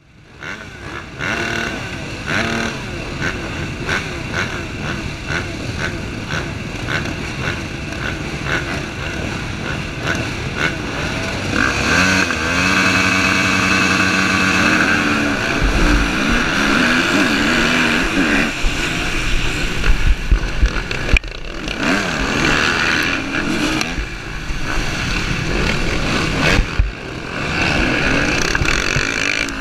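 A field of motocross dirt bikes revving at the start gate, the engines held at a steady high pitch, then roaring off the line about halfway through and racing on, heard from one of the bikes, a Husqvarna TC250R.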